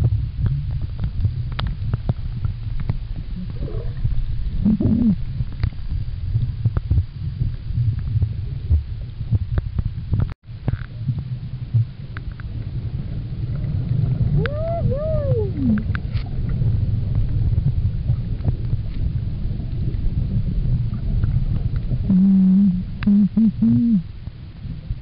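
Underwater low rumble with scattered clicks, and humpback whale song carrying through the water: an arching, rising-and-falling moan a little past halfway, and a few short low calls near the end.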